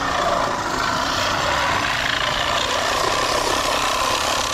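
Cordless reciprocating saw running steadily as its blade cuts through rusty steel pipe.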